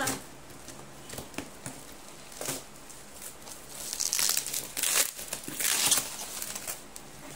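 A cardboard shipping box being cut and torn open, then its bubble-wrap packing rustling and crinkling. Several loud bursts come from about four seconds in, after a quieter stretch with a few faint ticks.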